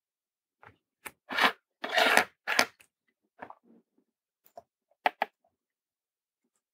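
Soldering iron melting solder onto the pins of a pin header on a circuit board: a few short bursts of flux sizzle, most of them in the first three seconds and fainter ones after, then two quick clicks about five seconds in.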